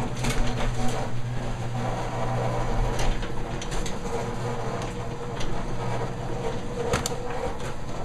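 Electric garage door opener running as it raises a sectional garage door: a steady motor hum with a few sharp clicks as the door rolls up its track.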